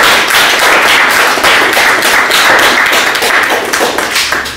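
Audience applauding: many hands clapping at once, loud and dense, dying down near the end.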